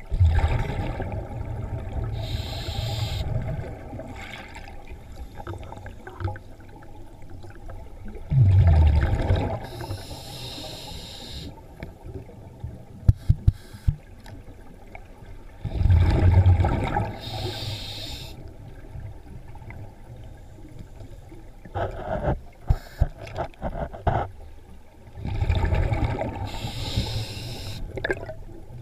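A scuba diver breathing through a regulator underwater: the bubbles of each exhalation rush past four times, about eight seconds apart, with the hiss of the inhalations between. A few sharp clicks and knocks come about halfway through and again later.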